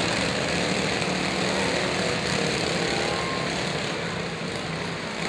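Several riding lawn mower engines running at once, a steady mechanical drone with no crashes or impacts.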